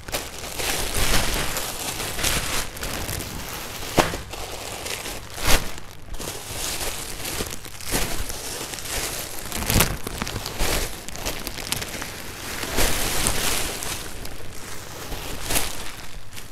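Clear plastic bags crinkling and rustling as they are rummaged through and pulled open, with frequent sharp crackles and several louder snaps.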